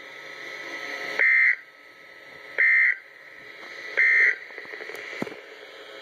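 EAS end-of-message signal from a NOAA Weather Radio: three short, equal bursts of high digital data tone, each about a third of a second and about 1.4 s apart, marking the end of the severe thunderstorm warning.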